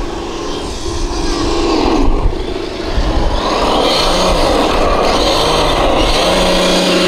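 Traxxas TRX-6 Mercedes-Benz 6x6 RC truck's electric motor and gearbox whining, the pitch rising and falling with the throttle and then holding steady near the end, over a low rumble.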